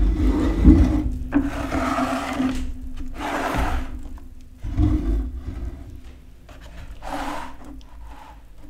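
Handling of a heavy rusty cast-iron sad iron in a plastic tray: a couple of knocks at the start and another about halfway, with three short scraping, rubbing sounds between them, the last near the end.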